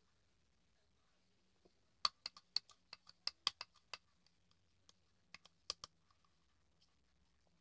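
Quick run of sharp, light plastic clicks and taps from a plastic spoon being handled, about a dozen in two seconds starting about two seconds in, then a few more near six seconds.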